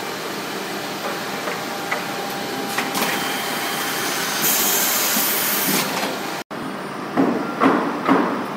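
Busellato multi-spindle boring machine running steadily as a wooden panel feeds through it. About halfway through, a high hiss lasts a little over a second, and near the end come several loud short bursts.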